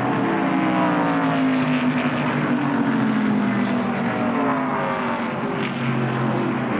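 Several NASCAR stock cars' V8 engines at racing speed, passing one after another, each engine note falling in pitch as it goes by.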